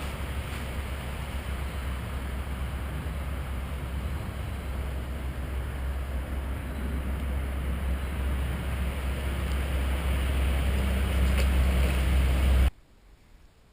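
A steady low rumble with a hiss over it, slowly growing louder, then cut off abruptly about a second before the end.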